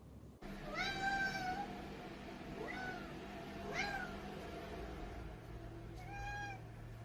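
A cat meowing four times: a long drawn-out meow about a second in, two short rising meows in the middle, and another meow near the end.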